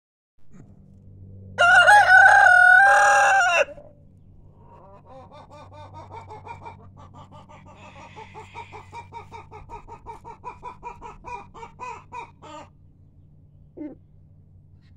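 Golden Buff Cochin rooster crowing once, a loud crow of about two seconds. It is followed by a long run of quick clucks, about four a second, with one short cluck near the end.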